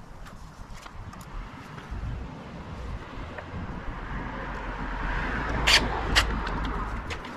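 Compact cordless driver running as it tightens the bolt of a motorcycle handguard mount, growing louder over several seconds. Two sharp clicks come near the end.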